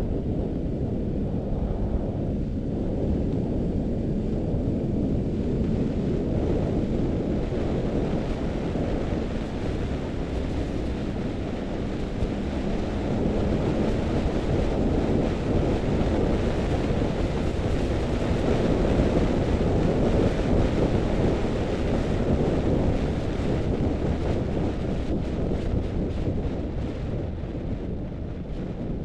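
Wind rushing and buffeting over the microphone of a vehicle driving along an open road, with a faint steady engine tone underneath in the first half.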